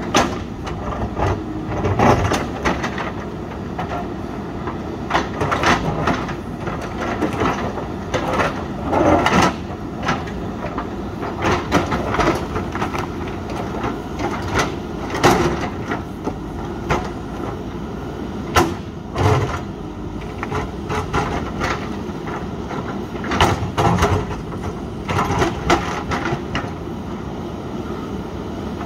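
JCB 3DX backhoe loader's diesel engine running under load, with the bucket scraping and knocking against rock and stones clattering in irregular sharp knocks.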